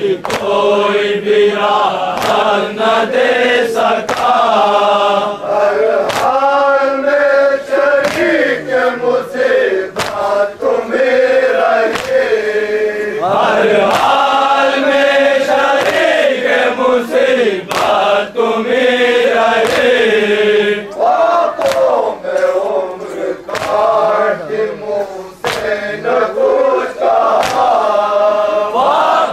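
A crowd of men chanting a nauha, an Urdu mourning lament, together in unison, over hands striking their chests (matam) in a steady beat about once a second.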